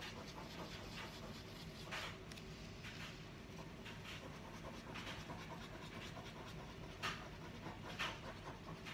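Faint rhythmic panting, about one breath a second.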